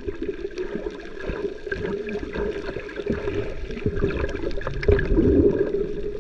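Sea water sloshing and gurgling, with a steady low hum running underneath and scattered small knocks.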